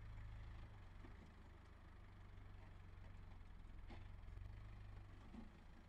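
Land Rover Discovery 300Tdi four-cylinder turbodiesel running faintly at low revs as it crawls over rough ground, a steady low hum.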